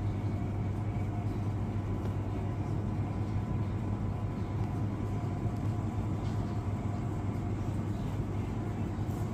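Steady low electrical hum of supermarket refrigerated display cases and their fans, with a faint high whine over it.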